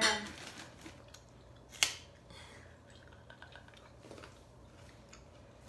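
Faint eating sounds: small clicks and chewing, with one sharp click about two seconds in.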